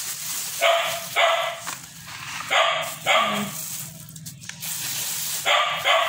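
A dog barking in pairs, two quick barks at a time, three times over.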